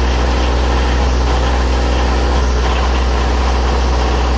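Onan diesel generator running steadily just after a cold start, still warming up.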